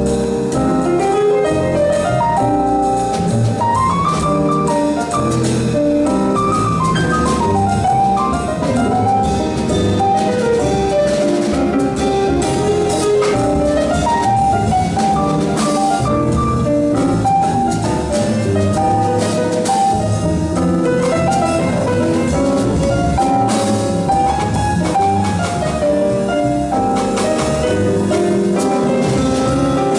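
Jazz piano trio playing live: grand piano carrying the melody over upright bass and a drum kit with cymbals.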